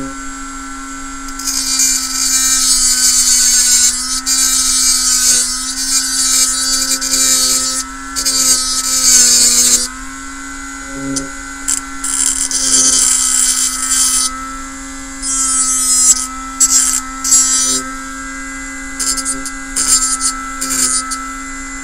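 Cordless rotary tool running steadily with a small cutting disc, ground against the edge of a small canopy piece in several passes of a few seconds each, each pass adding a loud, high grinding hiss, with shorter touches near the end. The corner is being taken off and rounded.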